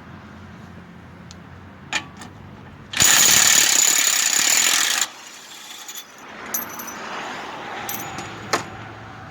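A power tool, most likely an impact wrench on the axle job, runs in one loud burst of about two seconds starting about three seconds in. A few sharp metal clinks of tools come before and after it.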